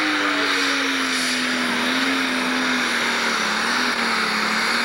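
Pro Stock pulling tractor's turbocharged diesel engine running flat out under load as it drags the weight-transfer sled down the track. It makes a loud, steady engine note that sags slightly lower in pitch, over a dense rush of noise.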